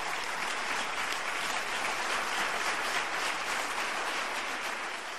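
Concert audience applauding, a steady patter of many hands that starts to fade near the end.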